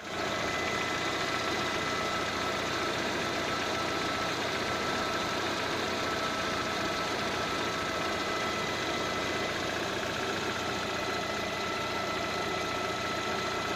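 Lada Kalina 2 engine idling steadily, with a light knocking in the running and a faint steady high whine. The owner can't tell what the small knock is, or whether it is normal.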